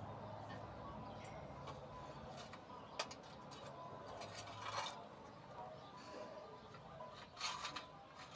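Faint handling sounds: a sharp click about three seconds in and two short rustles later on, over a low steady hum.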